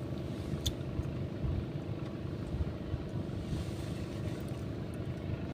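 Steady low drone of a distant engine.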